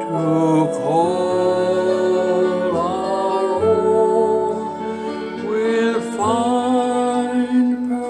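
A man singing a slow, sentimental old ballad over a gentle instrumental backing, holding long drawn-out notes.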